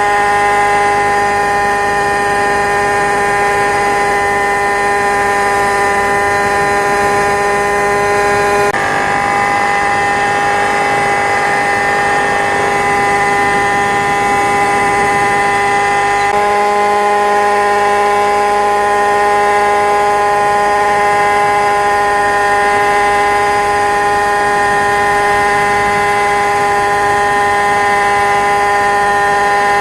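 Camera-carrying model helicopter's engine and rotor running at a steady pitch, a loud high whine with many overtones, heard from on board. The tone changes abruptly twice.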